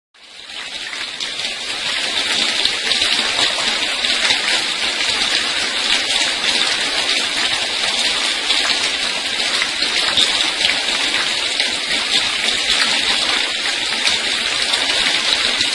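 Water sprayed down onto a bird's cage like rain, a steady hiss that fades in over the first two seconds.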